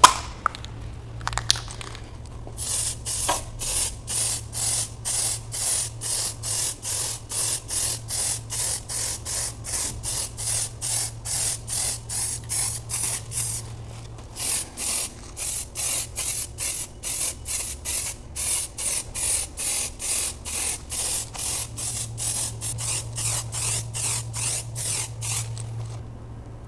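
Spray nozzle squirting in rapid, regular short bursts, about two to three a second, with a break of about a second near the middle.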